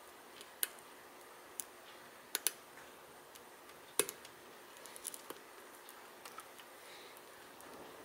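Faint, scattered metallic clicks of a steel hook pick working the pins of a brass Guard pin-tumbler padlock held under tension, as the picker probes for a binding pin; the sharpest click comes about halfway through.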